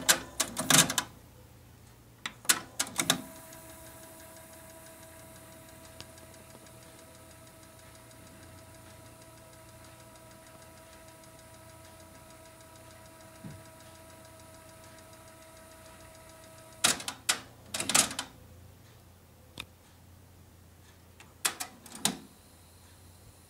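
Philips FC920 cassette deck's transport mechanism clicking and clunking as its buttons are pressed and the mechanism engages. For about fourteen seconds between the clunks the tape transport runs with a faint steady whine, as when the tape winds at speed in a search. More clunks come near the end as it stops and switches mode.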